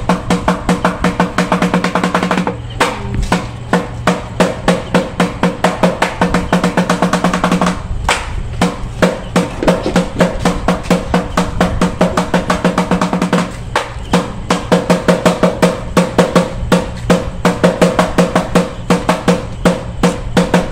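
Drumming to accompany a monkey dance: a drum beaten in a fast, steady rhythm, with a few short breaks.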